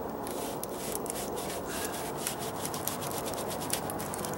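A small brush dabbing and scrubbing Dryvit stucco patch material onto a textured stucco column, bristles scratching the rough surface in a quick, irregular run of short strokes.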